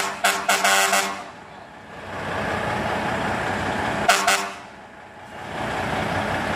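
Horn blasting in a run of quick toots in the first second, with one more short toot about four seconds in. Between and after the toots, a Freightliner FLD truck's Cummins N14 diesel runs steadily as it pulls the rig through the turn.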